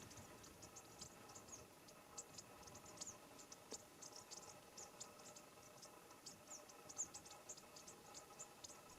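Near silence with faint, high-pitched chirps repeating irregularly, a few times a second.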